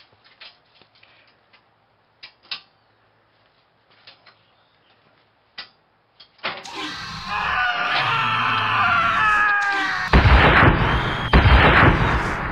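A few faint knocks, then a long, loud scream that slides slowly down in pitch. It gives way to about two seconds of loud, harsh noise with a heavy low rumble.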